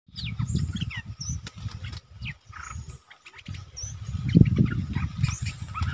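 Bulbuls calling in a run of short chirps and quick downward whistles, over a loud, uneven low rumble.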